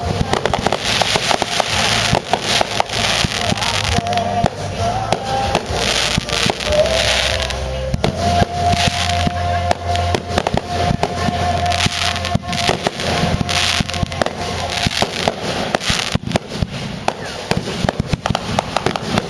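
Fireworks going off in a rapid, continuous barrage of bangs and crackle. A held tone runs under them through the middle of the barrage.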